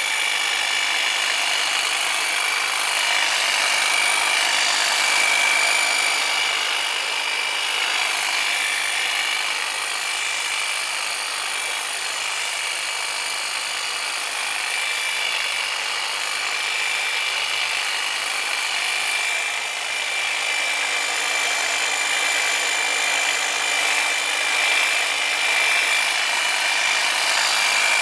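Hedge trimmer running steadily: a continuous high whine over a noisy hiss, with small swells in level.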